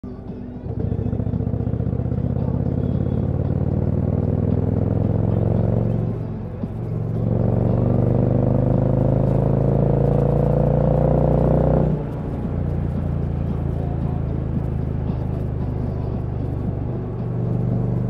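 2022 Indian Challenger's PowerPlus V-twin running through an aftermarket Dr Jekill & Mr Hyde exhaust under hard acceleration. The engine note climbs, dips briefly at a gear change about six seconds in, climbs again, then drops back about twelve seconds in and settles to a steady cruise.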